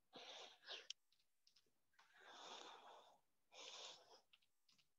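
A few faint, breathy exhalations, short puffs of air about a second or so apart, from people breathing hard during squats.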